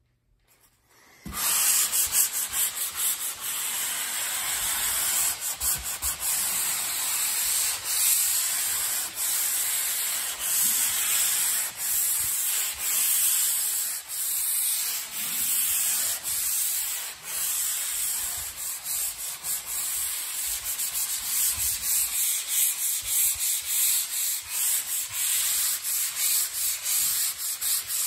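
Hand sanding with an angled drywall sanding sponge, rubbed back and forth over dried joint compound on a drywall butt joint: a steady scratchy rubbing that starts about a second in.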